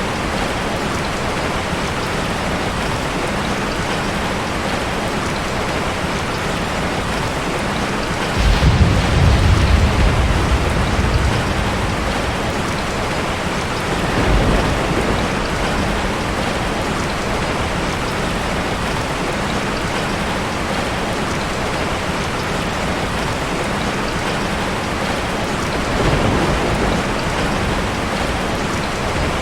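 Steady rain falling, with low rumbles of thunder: a strong one lasting about three seconds about a third of the way in, and two weaker, shorter ones later.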